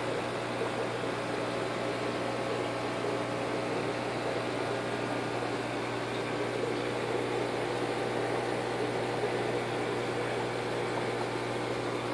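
Aquarium filter running: a steady low electrical hum under an even hiss, with no change in level.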